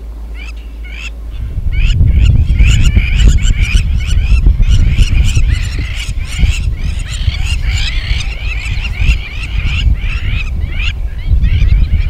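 A flock of Egyptian geese calling, with many short honking calls overlapping. Underneath, a heavy low rumble sets in about a second and a half in and is the loudest sound.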